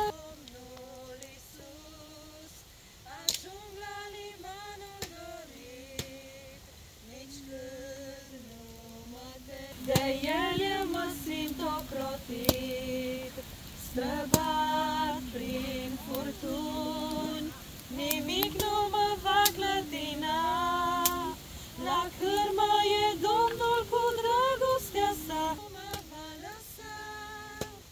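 A woman singing a melody, softer for the first ten seconds and fuller from about ten seconds in. A few sharp crackles come from a wood campfire.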